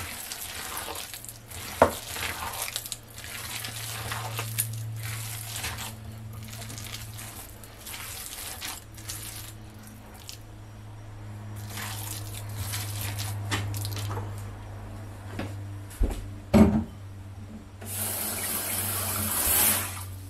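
Hands squeezing and kneading wet raw chicken mince with chopped vegetables in a glass bowl: repeated soft squelching and rustling, with a sharp click about two seconds in and a knock near the end. A louder rushing hiss lasts about two seconds near the end, over a steady low hum.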